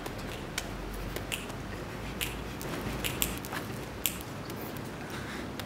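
Scattered short, sharp clicks and snaps at irregular intervals over a steady low hiss.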